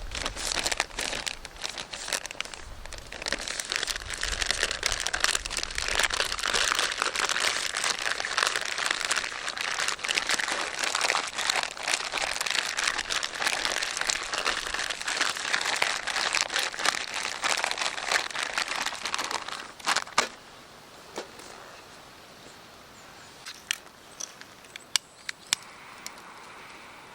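Crinkling and rustling of something being handled, with many small clicks, for about twenty seconds; then it stops, and only a few scattered ticks follow.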